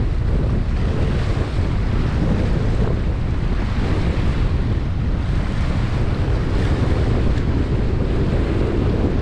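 Steady wind blowing across the microphone, a continuous low noise with no breaks.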